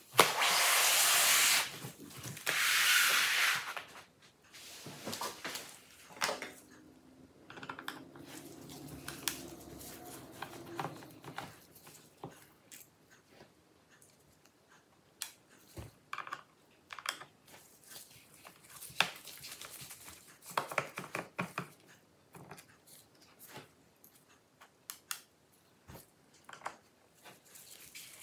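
A large laptop slid and turned on a wooden tabletop, with two loud rubbing scrapes in the first four seconds. Then come scattered light clicks and scrapes from a precision screwdriver turning out the small bottom-cover screws, and from the screws being set down.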